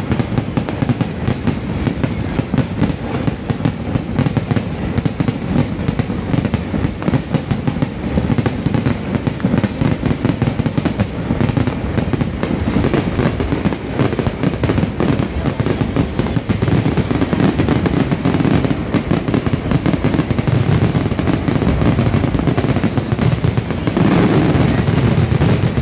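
Aerial fireworks going off in a dense, unbroken barrage of overlapping bangs and crackling stars, growing louder near the end.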